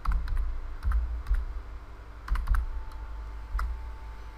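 Typing on a computer keyboard: irregular key clicks, several with a low thump under them.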